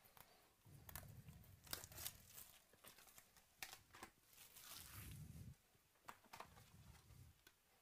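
Faint crinkling and tearing of cellophane wrap as a box of baseball card packs is unwrapped and the packs handled, with scattered sharp crackles.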